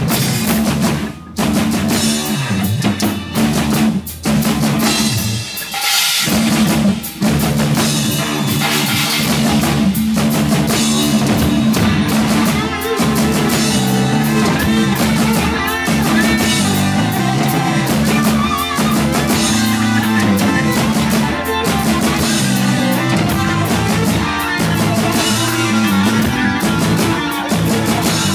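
A progressive rock band playing live: drum kit with a heavy bass drum, electric guitar and bass, breaking off in sharp stops several times in the first seven seconds and then settling into a steady driving groove. The recording is overloaded, so the sound breaks up and distorts.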